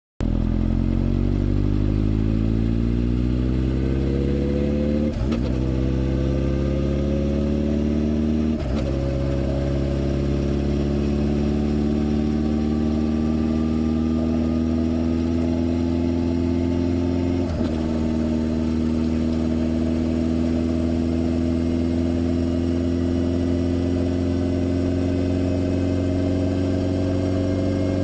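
Motorcycle engine running under way, its note slowly rising as the bike gathers speed, with three brief breaks at about 5, 9 and 18 seconds in, typical of gear changes.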